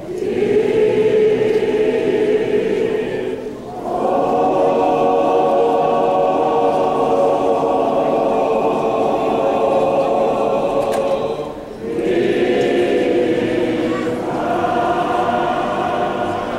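Church choir singing in long held chords, the phrases breaking briefly twice for breath.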